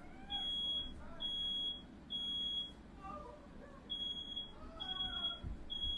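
Smoke alarm sounding its high, steady beep in groups of three half-second beeps, a short pause, then three more, set off by smoke from a firework lit indoors.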